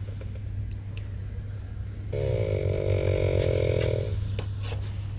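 A sleeping person snoring: one long snore of about two seconds, starting about two seconds in, over the steady low hum of the sleeper train.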